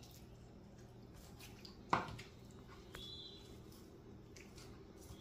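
Kitchen knife on a wooden cutting board while cooked chicken is cut up: a few faint small clicks and one sharper knock about two seconds in.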